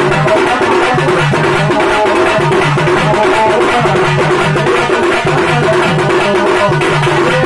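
Drum band music: a strap-hung side drum beaten with two sticks in a fast, dense, unbroken rhythm, with a low pitched tone pulsing in a repeating pattern beneath it.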